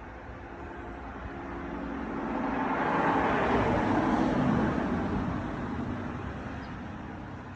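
A road vehicle passing by, growing louder to a peak about four seconds in and then fading away.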